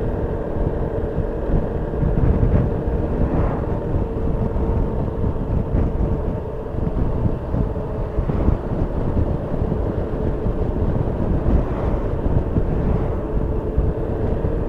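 Yamaha XMAX 300 scooter's single-cylinder engine running at a steady cruise, its hum under a heavy rush of riding wind on the microphone.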